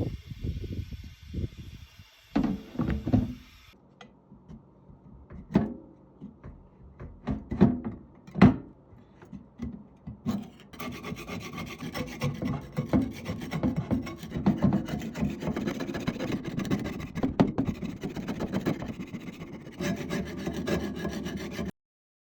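Cast-iron Golding Pearl #3 platen press being scooted across the floor: irregular scrapes and knocks at first, then a long stretch of continuous scraping and rubbing that cuts off abruptly near the end.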